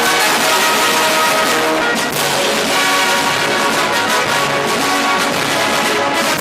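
Background music with brass and orchestral instruments.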